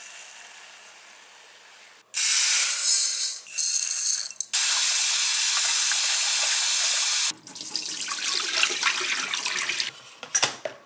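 Kitchen faucet running into a pot to rinse glutinous sticky rice. It comes on suddenly about two seconds in and stops abruptly after about seven seconds, followed by a few seconds of softer noise as the rice is handled.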